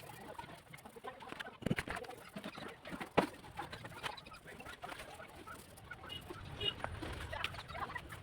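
Scattered faint knocks and clicks, the sharpest about a second and a half and three seconds in, with a brief high-pitched trill near the end.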